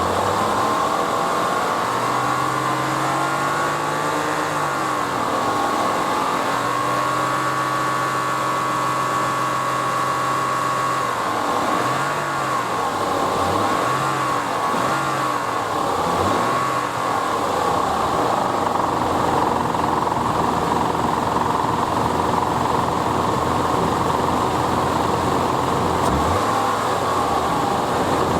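Nissan Elgrand E51's VQ25DE V6 engine running and being revved up and down several times, with a steady high whine over it. The noise in question is an abnormal noise from the air-conditioning compressor, which the owner hears from about 2500 rpm.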